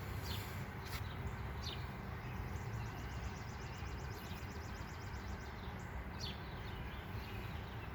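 Birds chirping in the background, a few short falling calls and a rapid trill lasting about three seconds, over a steady low hum.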